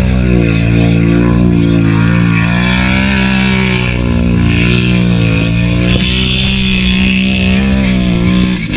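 ATV engine revving hard under load as it churns through a mud pit, its pitch rising and falling repeatedly; the sound cuts off near the end.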